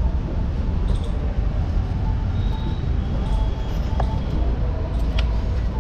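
Steady low rumble of street traffic, with a couple of faint clicks about four and five seconds in.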